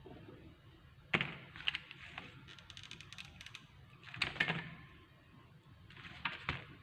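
Scattered knocks and clicks, with a quick run of small ticks in the middle, over a low steady background.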